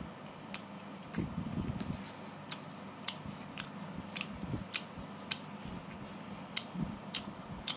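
A person chewing food with wet mouth clicks and smacks, about two a second.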